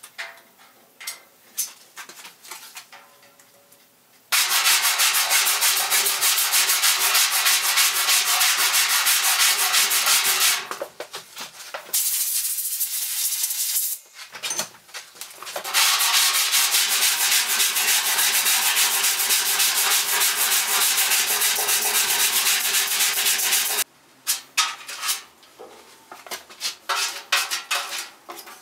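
A power sander running steadily in two long stretches of several seconds each, sanding down cured body filler on a sheet-metal truck box side. Shorter scrapes and taps of hand work come before, between and after the stretches.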